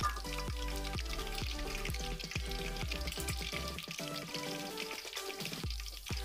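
Hot oil sizzling as halved purple eggplants deep-fry in a wok, under background music with a steady beat.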